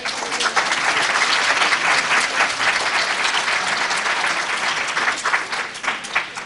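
Audience applauding: many hands clapping steadily, then dying away near the end.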